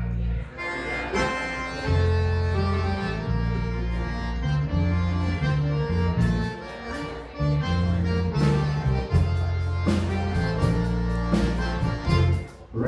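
Live Cajun band playing an instrumental passage: accordion carrying the melody over electric bass and drums, with fiddle. Drum and cymbal hits come through more sharply in the second half.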